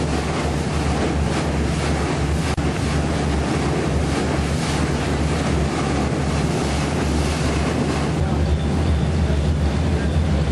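A boat's engines running steadily under way, with a constant low drone and the rush of water and wind over it. The rumble grows a little louder near the end.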